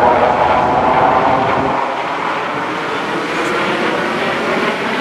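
Jet noise from four U.S. Air Force Thunderbirds F-16 Fighting Falcons flying overhead in formation: a loud, steady rushing sound. Its deep low rumble drops away about two seconds in as the jets move off.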